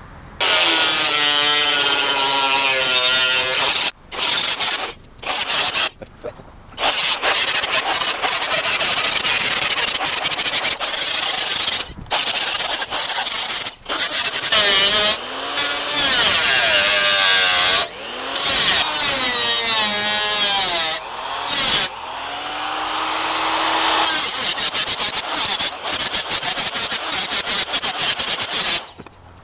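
Electric angle grinder with a cut-off disc cutting through perforated steel plate, loud and grating, starting about half a second in. It stops and starts several times, the motor's pitch falling as it winds down and rising as it spins back up between cuts.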